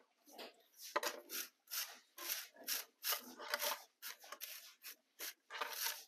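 A metal shovel and a short grass hand broom scraping over a rough concrete floor in short repeated strokes, about two or three a second, as swept-up pig manure is pushed onto the shovel.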